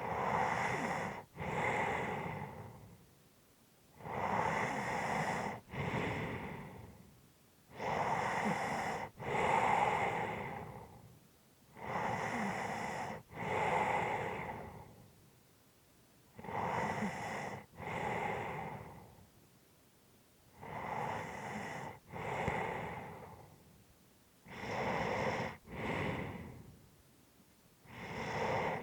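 A resting person breathing heavily and slowly. Each breath is an in-breath followed at once by an out-breath, about one every four seconds, with little or no snoring tone.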